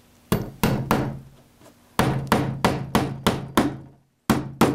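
Hammer driving a wiring staple over Romex cable into a plywood backboard. About a dozen sharp strikes come in three runs: three quick ones, a steady run of about seven, then two more after a short pause.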